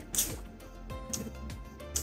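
Background music: soft held notes with a few light percussive hits.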